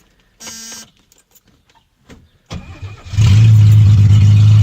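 The 1970 Mercedes-Benz 250's straight-six, fed by freshly rebuilt twin Zenith 35/40 carburettors, cranks briefly on the starter and catches about three seconds in, settling into a steady, loud idle through short stub exhaust pipes. A brief buzz sounds about half a second in, before the cranking.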